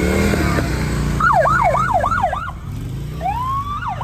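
Police motorcycles idling past with a low engine rumble. About a second in, a siren gives a short burst of fast yelps; near the end it starts a rising wail that breaks into yelps again.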